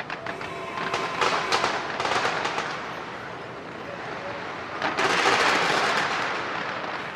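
Fireworks crackling and popping in quick clusters, then a louder, longer burst about five seconds in.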